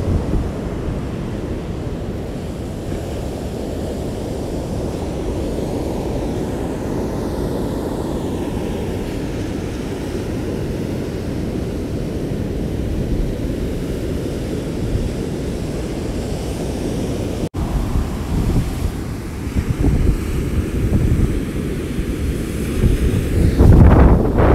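Wind buffeting the microphone over the steady rush of heavy storm surf, driven by a major hurricane offshore. The gusts grow choppier in the last several seconds and are strongest near the end.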